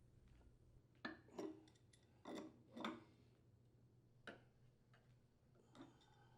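A wrench unthreading the old drain valve from a water heater tank: about six faint, short metallic clicks and clinks, spaced unevenly.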